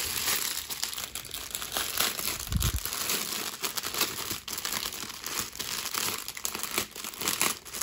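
Packaging crinkling and rustling continuously as it is handled and opened, with crackly clicks throughout. A short dull thump comes about two and a half seconds in.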